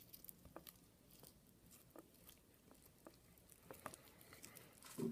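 Faint, scattered sticky clicks and squishes of freshly mixed borax slime being worked by hand, with one louder knock near the end.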